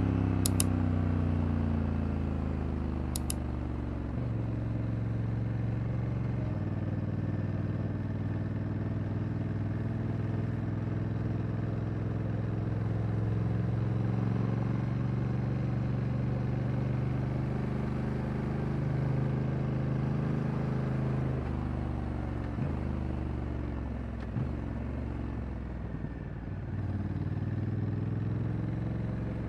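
Honda Africa Twin's parallel-twin engine running. Its revs fall over the first few seconds, change in a couple of abrupt steps, and then hold fairly steady before rising again near the end.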